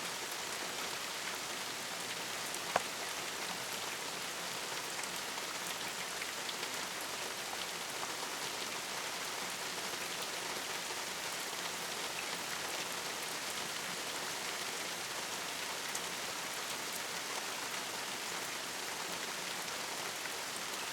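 Steady rain falling, an even hiss dotted with small drop ticks, with one sharper, louder tick a little under three seconds in.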